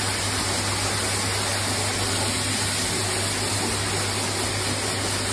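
Electric blow dryer running steadily, a constant rush of air over a low motor hum, as used to blow out a dog's thick coat.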